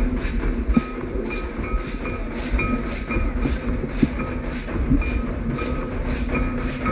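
Santal dance drums, including large kettle drums (tamak'), beaten in a fast, steady rhythm of repeated strokes. Short high notes on one pitch repeat over the beat.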